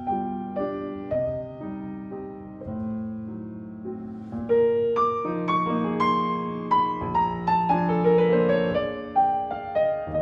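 Background solo piano music: a gentle melody of single struck notes, with a falling run of notes in the second half.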